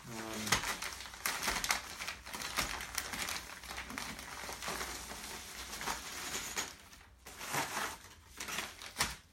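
Paper and plastic packaging crinkling and rustling as the contents of a parcel of Lego bricks are handled and unpacked, in irregular bursts of rustling.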